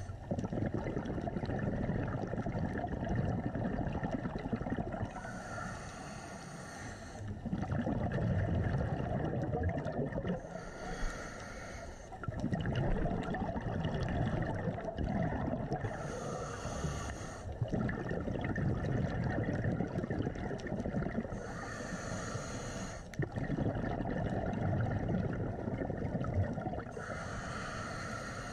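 Scuba diver breathing through a regulator, heard through an underwater camera housing. Five short hissing inhales come about every five and a half seconds, and each is followed by a longer, louder rumbling rush of exhaled bubbles.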